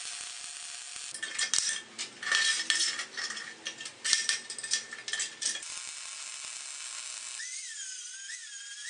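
Metalworking sounds in quick succession: a brief welding hiss, then a run of sharp metallic clicks and clinks. About seven and a half seconds in, an angle grinder's high whine sets in, wavering in pitch as the disc bears on a steel bar held in a vise.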